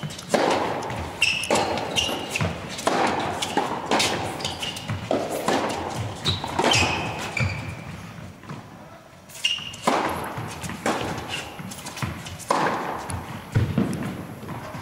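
Indoor tennis rally: rackets striking the ball and the ball bouncing on the court, a sharp hit every second or so, each echoing in the hall. Short high squeaks from the players' shoes come between the hits.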